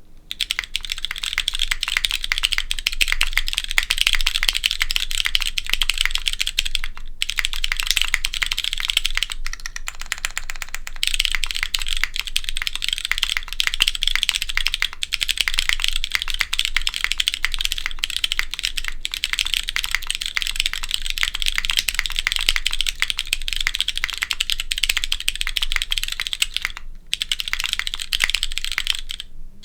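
Fast typing on a Matrix Corsa mechanical keyboard with lightly lubed Cherry MX Brown switches on a polypropylene plate under DCS keycaps. The keystrokes make a dense, crisp clatter, with a couple of brief pauses.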